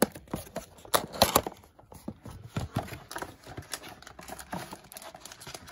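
The cellophane wrap and cardboard of a trading-card mega box being torn and peeled open: a run of crinkles, sharp clicks and snaps, loudest about one to one and a half seconds in.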